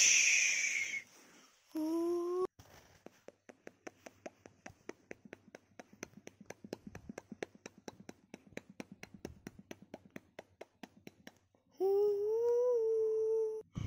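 A loud hissing burst, then a short hummed tone, then a long run of light, irregular clicks, several a second, from a toy train being handled. Near the end a voice holds a long, wavering hummed note.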